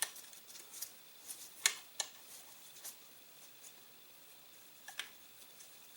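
Scattered light clicks and taps, about half a dozen, from handling a Taurus/Rossi Circuit Judge's cylinder and working its freshly oiled ejector plunger.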